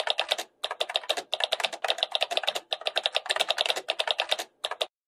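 Typing sound effect: rapid key clicks in several quick runs broken by brief pauses, in time with on-screen text being typed out letter by letter. The clicks stop just before the end.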